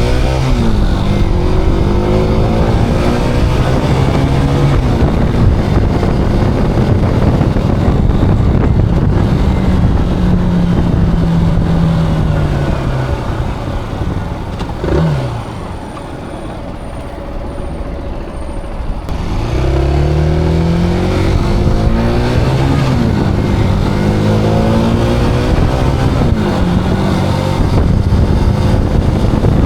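Zontes cruiser motorcycle engine accelerating through the gears, its pitch climbing and dropping with each shift, with wind rush. About halfway through the engine falls back to a quieter, steady low note for a few seconds. Then it pulls away again, rising through several gears.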